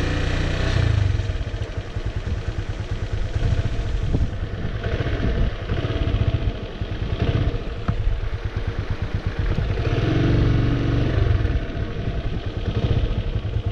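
Motorcycle engine running as the bike rides slowly along a country lane, the engine note swelling and easing a few times with the throttle.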